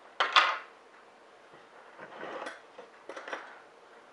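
Kitchen dishes and utensils being handled: a sharp, loud clink about a quarter second in, then two softer rattles around two and three seconds in.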